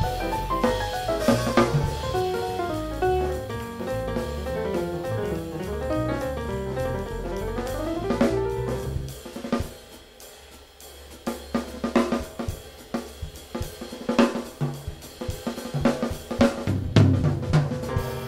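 Jazz trio playing: fast piano lines over bass and drums. About halfway the piano drops out and the drum kit plays a solo break of snare, bass drum and cymbal hits.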